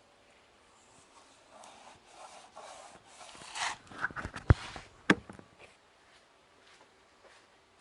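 Hand-work noises while working on a car: a run of rubbing and scraping, followed by two sharp knocks about half a second apart, the loudest sounds here.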